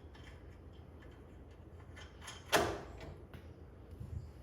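Light clicks and taps of metal parts being handled as a coilover is fitted to its mount bolts, with one sharp knock about halfway through.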